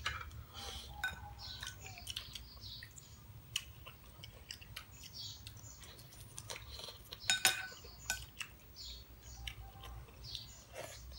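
People eating cooked moringa pods: wet chewing and sucking as the pulp is drawn out of the pods, with scattered clicks of a spoon on plates. A couple of louder clinks come about seven seconds in.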